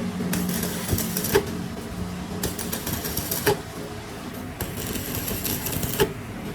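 Workshop metalworking sound: three repeated strokes about two seconds apart, each a hissing scrape lasting about a second and ending in a sharp knock.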